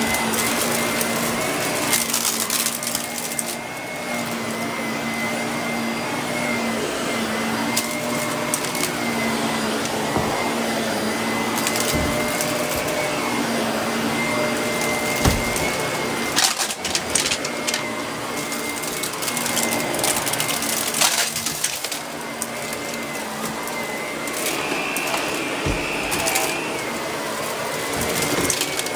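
Shark upright vacuum cleaner running on carpet with a steady motor hum and whine, its brushroll sweeping the pile. Frequent sharp crackles and clicks as crumbs and small bits of debris are sucked up, and the whine rises in pitch for a couple of seconds near the end.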